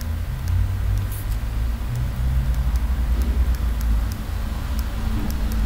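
A low mechanical rumble, like a running engine, that shifts in pitch a few times, with faint light ticks scattered through it.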